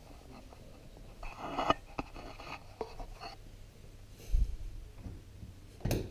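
Scratchy rustling and light knocks of handling, a dull thump about four seconds in, and a sharp click near the end as a hand takes the knob of the jukebox's wooden cabinet door.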